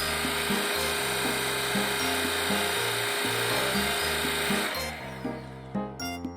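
Shark EVOPOWER SYSTEM ADV cordless stick vacuum running with a steady high-pitched whine and rushing air, then switched off about three-quarters of the way in. Background music plays throughout.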